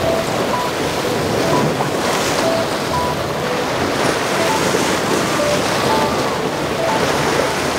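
Rough sea water rushing and breaking in a steady wash, with wind buffeting the microphone.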